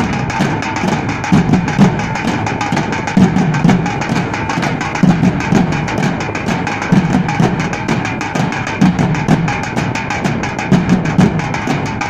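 A group of drums with large metal shells, beaten with sticks in a fast, driving rhythm of dense, even strokes. Deep accented beats come in pairs about every two seconds.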